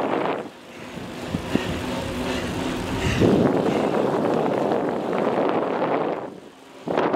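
Wind buffeting a camera microphone carried on a moving bicycle. It drops away briefly about half a second in and again near the end.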